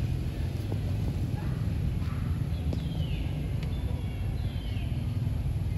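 A steady low rumble, with a few short, high animal calls that fall in pitch, about three and again about four and a half seconds in.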